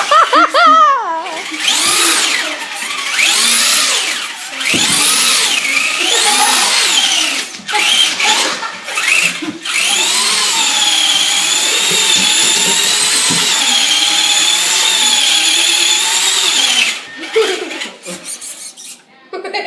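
RC car's motor whining at high pitch, revved in rising and falling surges, then held at full speed in a steady whine for several seconds before dropping off near the end, as the car does a burnout.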